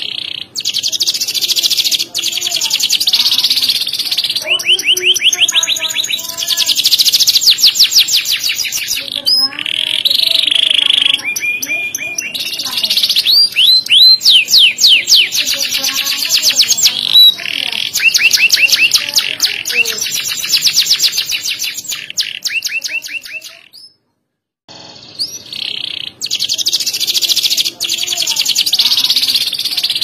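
Domestic canary singing a long, loud song of rapid trills and whistled phrases, broken once by a brief pause about three-quarters of the way through.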